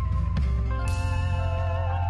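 Background music led by guitar over a steady bass line.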